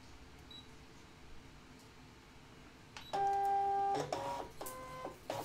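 Brother ScanNCut cutting machine's motors drawing the mat in to scan it. After about three seconds of quiet it gives a steady mechanical whine, which changes pitch several times in abrupt steps.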